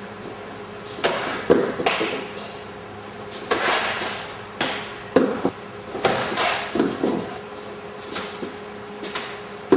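Irregular thuds and slaps of footwork stamping on the mat and hands striking and blocking during a knife-disarm drill, about a dozen sudden knocks with a short echo after each, over a steady low hum.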